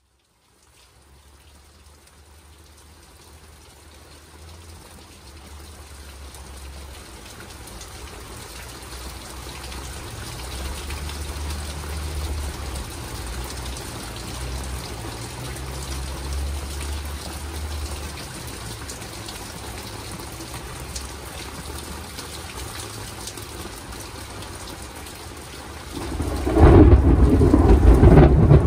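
Thunderstorm: steady rain hiss fading in, with a low rumble of thunder through the middle. About 26 seconds in, a much louder clap of thunder breaks suddenly and keeps rumbling.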